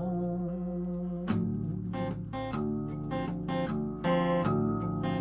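Acoustic guitar played in a steady pattern of picked and strummed chords, with a sung note held over it for about the first second.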